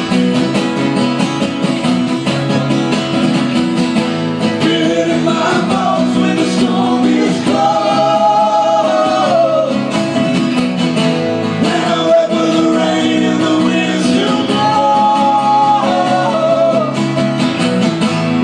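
Live acoustic folk-rock music: strummed acoustic guitars under a held, bending melody line that comes in phrases of a second or two.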